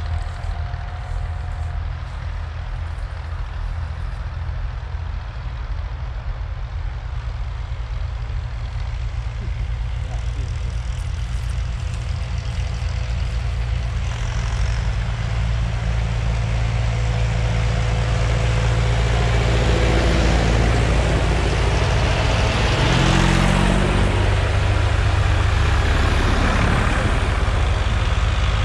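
Tractor engines approaching, led by a Ford 6610, their diesel running growing steadily louder as they near, with the engine note shifting about two-thirds of the way through.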